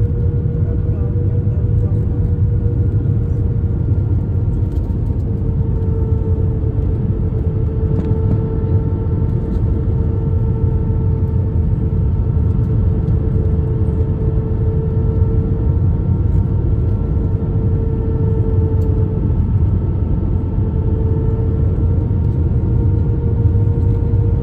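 Cabin noise of an Airbus A321-232 with IAE V2500 engines on final approach with flaps extended: a steady low rumble of engines and airflow, with a steady hum whose pitch dips slightly a couple of times.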